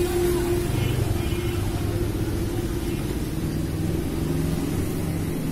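Engine of a moving vehicle heard from inside it, running with a steady low rumble; its note changes a little past halfway through.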